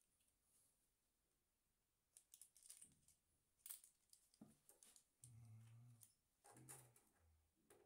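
Very faint handling sounds from working a plastic conduit clip and a cordless drill-driver at a ceiling: scattered clicks and rustles starting about two seconds in, with a few short low hums near the end.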